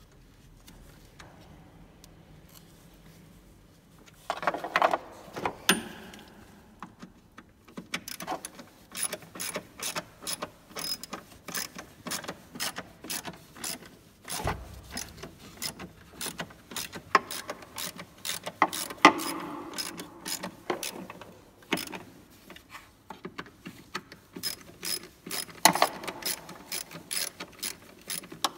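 Hand socket ratchet clicking in quick repeated strokes as a bolt is turned, about three clicks a second, starting a few seconds in after some knocks of tools and parts, with an occasional louder clunk.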